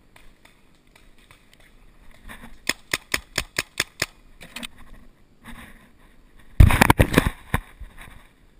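Paintball marker firing a rapid string of about eight shots, about six a second. About four seconds later comes a louder, closer cluster of sharp cracks.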